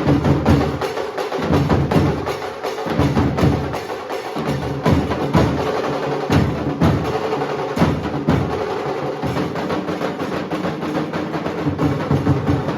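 Nasik dhol ensemble drumming: large barrel dhol drums and sharp stick strokes beaten in a fast, dense, continuous rhythm.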